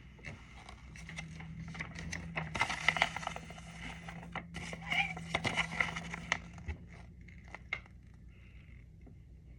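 Crinkling, rustling and scraping of small plastic and paper packaging being handled, busiest in the first two thirds and fading to scattered light ticks.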